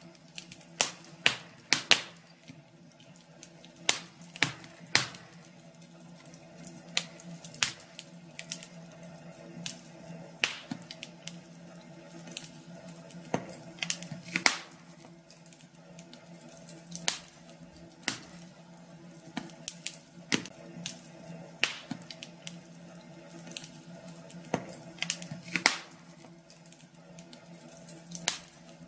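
Wood fire in a fireplace crackling, with irregular sharp pops and snaps, some single and some in quick clusters, over a steady low background.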